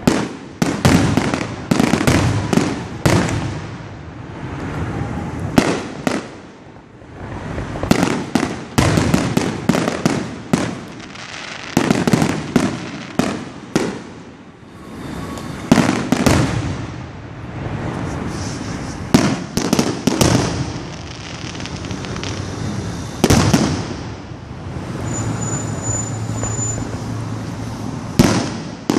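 Fireworks going off: volley after volley of sharp bangs and crackling, bunched in quick clusters with short lulls between them.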